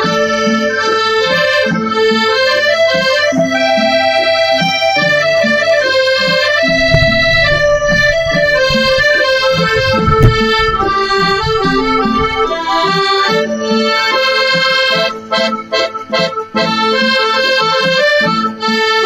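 Piano accordion playing a melody over low chords. A low rumble runs under it for several seconds in the middle, and the sound cuts out briefly a few times near the end.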